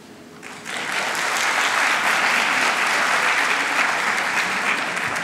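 Audience applauding. It starts about half a second in, builds quickly to a steady clapping and eases off slightly near the end.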